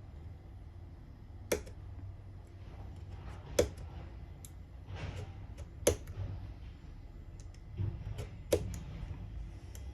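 Plastic window sheet being cut and scored with a hobby knife: sharp clicks, four louder ones about two seconds apart, with short scratches between them, over a low steady hum.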